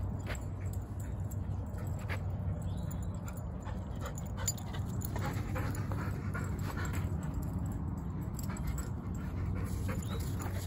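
A dog panting close to the microphone, with scattered light crunches of footsteps on dry dirt and twigs over a steady low hum.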